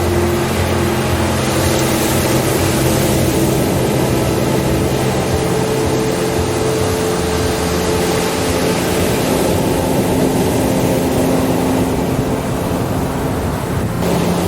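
Slow ambient relaxation music: long held low tones that shift to new notes every few seconds, over a steady rushing wash like ocean surf that slowly swells and fades.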